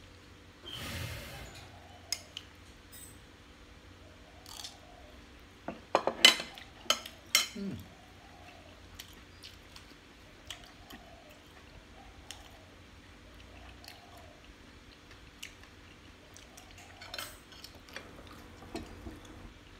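A metal spoon clinking and scraping against ceramic plates and a bowl while eating, as scattered sharp clinks. The loudest run of clinks comes about six to seven and a half seconds in. Soft chewing is heard between the clinks.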